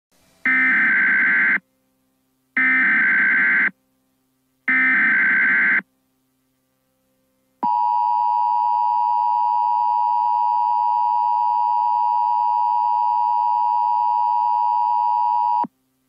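Emergency Alert System header for a tornado warning: three short bursts of digital data tones, each about a second long and a second apart. Then the EAS attention signal, a steady two-tone alarm held for about eight seconds, cuts off sharply.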